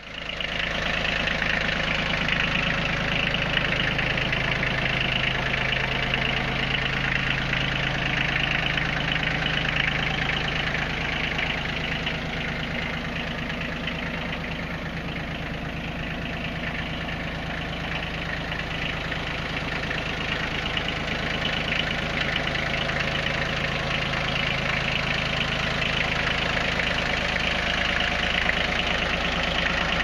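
Kubota B1600 compact tractor's three-cylinder diesel engine idling steadily.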